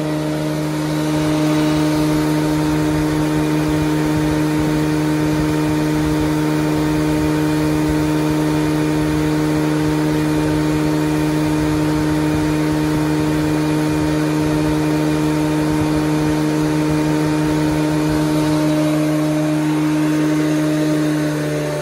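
Felder D951 thickness planer running empty, its cutterhead spinning and feed rollers driven: a steady, even hum that holds one pitch. The machine has just been fully overhauled with new SKF bearings, and the owner calls it in ideal condition.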